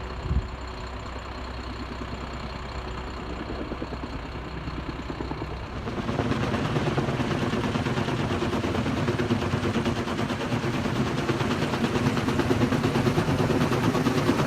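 Kaman K-MAX heavy-lift helicopter's intermeshing twin rotors beating with a rapid, steady chop, getting louder about six seconds in. A brief low thump near the start.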